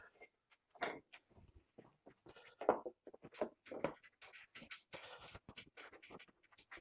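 Irregular short scrapes and knocks, two or three a second, from work on a plastic car bumper.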